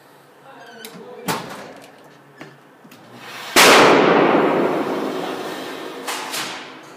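A sharp knock about a second in, then a single loud gunshot about three and a half seconds in, its echo dying away over the next few seconds in an indoor shooting range.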